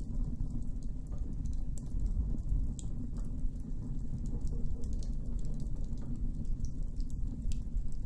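A wood campfire crackling, with many small sharp pops and snaps scattered irregularly over a low steady rumble.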